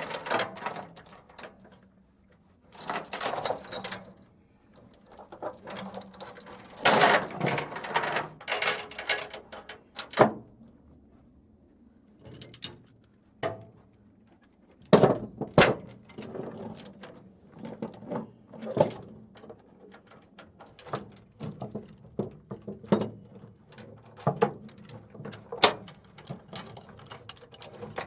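Ratchet chain binder being worked on a chain: bursts of ratcheting clicks and metal chain rattle separated by short pauses, with a few sharp, loud metal clacks about halfway through.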